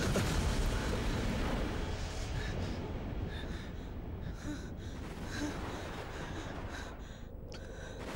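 A person gasping and breathing hard over a low, noisy rumble like rushing wind, which slowly fades.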